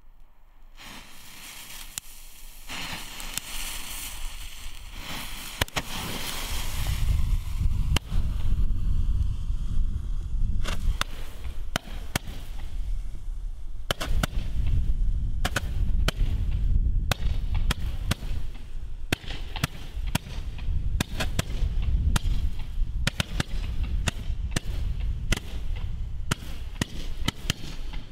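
A Weco Magical Shots 30-shot Roman candle firing. Fuse hiss builds for the first few seconds, then it launches its stars one after another, each a sharp pop roughly once a second, over a steady low rumble.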